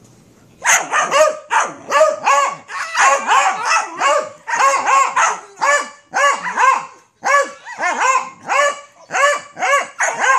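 Beagle barking in a fast, unbroken run of short, high-pitched barks, about two to three a second, starting just under a second in.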